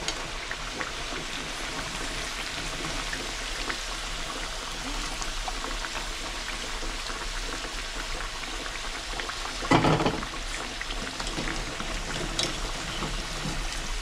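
Battered potatoes deep-frying in hot oil: a steady sizzle with scattered small crackles. A brief loud knock about ten seconds in.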